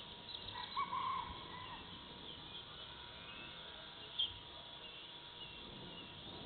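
Dusk forest ambience: a bird gives a short run of quick whistled calls about a second in, and a single sharp chirp sounds a little past four seconds, over a steady high-pitched chorus of insects.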